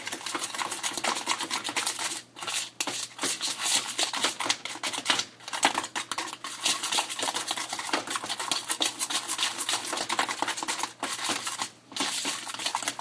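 Mustard barbecue sauce being stirred hard in a bowl: fast, continuous clinking and scraping of the utensil against the bowl, stopping briefly a few times.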